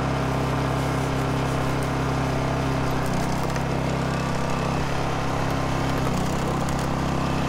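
Honda EU2200i inverter generator's small single-cylinder four-stroke engine running steadily, its pitch shifting slightly a couple of times.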